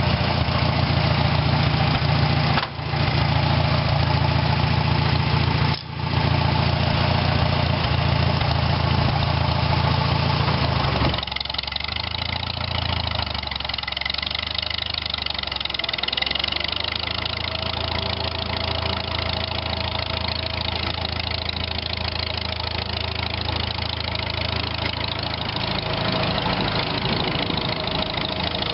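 Farmall 300 tractor engine running, driving a flat belt from its pulley that turns over an unfired 1936 IH W-40 engine to limber it up after 30 years standing. About a third of the way in, the sound drops lower and quieter and wavers for a few seconds before settling into a steady run.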